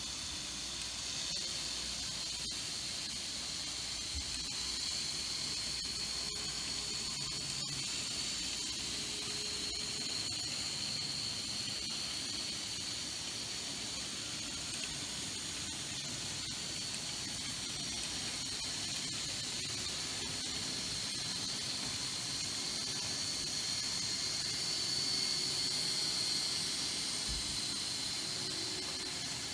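Z-scale model trains running on the layout: a steady hiss with a thin, high wavering whine that grows a little louder near the end, and a few faint clicks.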